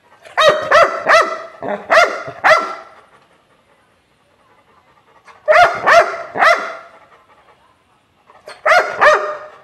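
Yellow Labrador retriever barking in three bursts of quick barks: about six in the first two and a half seconds, three or four more about halfway through, and two or three near the end.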